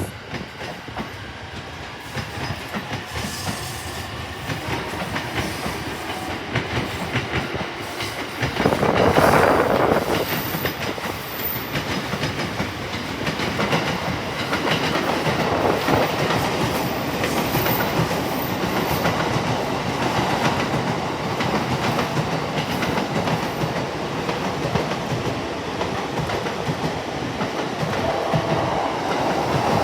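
A train running through the station, its wheels clattering over the rail joints, with a louder surge about nine seconds in.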